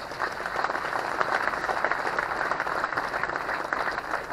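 Crowd applauding, a dense, even clatter of many hands clapping.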